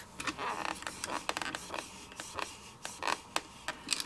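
Handheld ink pad dabbed and rubbed against a clear stamp in a hinged acrylic stamping tool: a string of light, irregular taps and clicks with some scratchy scraping of the pad over the stamp.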